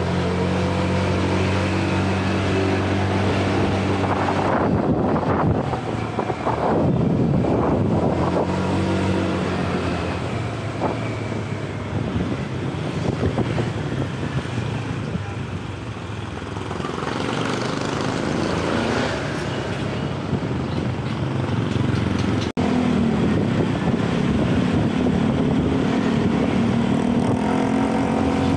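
Motorcycle engine running while riding along a street, with wind rushing over the microphone. The engine hum is steady at first and wavers in pitch near the end.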